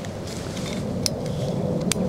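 Steady low rumble of wind buffeting the microphone, broken by two short sharp clicks, one about a second in and one near the end.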